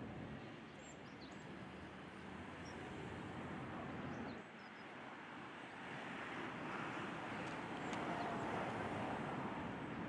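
Steady outdoor background rumble, growing a little louder in the second half, with a few faint, very short high chirps.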